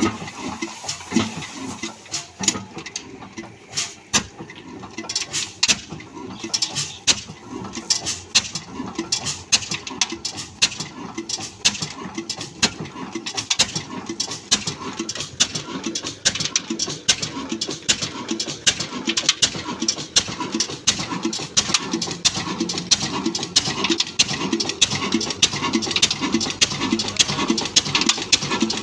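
22 hp single-cylinder diesel engine with a heavy flywheel starting and running on a flour mill: a fast rhythm of sharp clicks and knocks over a low, even chuffing beat. The clicks come faster and thicker about five seconds in as the engine picks up.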